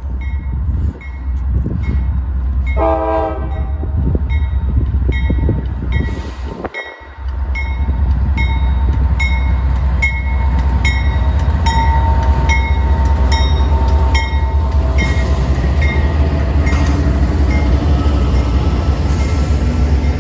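A grade-crossing bell rings steadily about twice a second as a Norfolk Southern intermodal freight train approaches. The train's diesel locomotives sound the horn in one short blast about three seconds in. From about eight seconds the locomotives' deep rumble grows loud as they pass close by.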